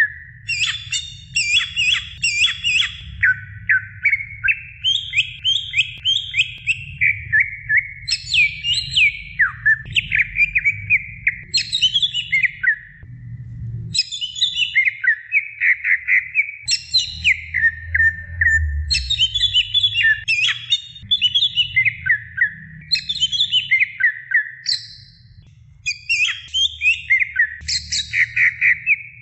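Cucak ijo (green leafbird) singing at length, a fast, varied run of sweeping, mostly falling whistled notes and chatter. It breaks off briefly about halfway and again near the end.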